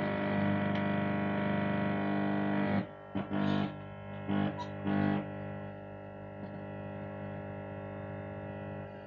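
Amplifier speaker buzzing with a loud mains hum from an LA4440 amplifier board. About three seconds in the hum drops, a few short bursts of buzz follow, and a quieter steady hum carries on.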